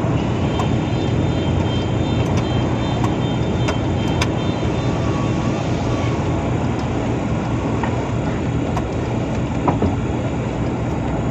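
Diesel truck engine idling steadily, heard from inside the cab as a constant low hum, with a few light clicks here and there.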